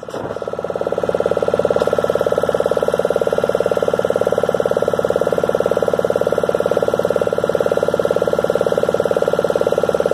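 Motor of a small open boat running steadily under way, a fast, even pulsing engine note. It dips at the start and climbs back to full level within about a second and a half.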